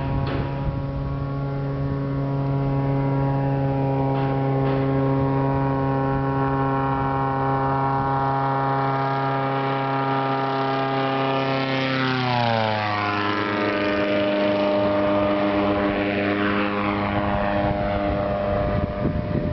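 Janowski J-1B Don Quijote ultralight's engine and propeller running steadily at high power. About twelve seconds in, the pitch drops sharply as the aircraft passes close by, and it carries on lower and steady as it moves away.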